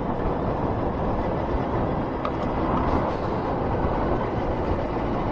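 Honda Fireblade sportbike running steadily at town speed, heard as a continuous rush of engine, wind and road noise on the on-board camera.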